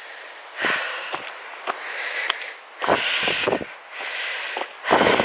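A hiker breathing hard close to the microphone: several loud, noisy breaths about a second apart over a faint steady hiss.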